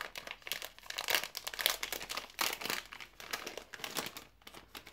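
Plastic ice cream wrapper being torn open and crinkled by hand to get a Magnum ice cream bar out: a dense run of irregular crackles.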